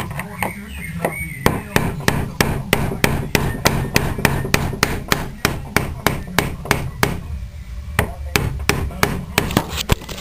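Hammer striking a flathead screwdriver to drive out a door hinge pin. Sharp metal-on-metal blows come about three a second, with a short pause about three-quarters of the way through, over a low steady hum.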